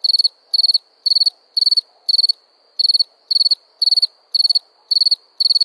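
Cricket chirping in an even rhythm, about two short trilled chirps a second.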